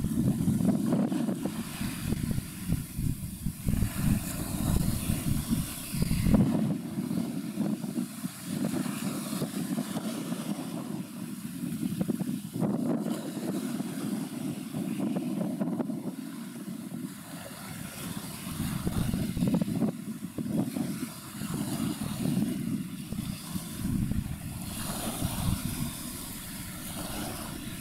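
Wind buffeting the microphone in an uneven, gusting rumble, with a faint hiss above it.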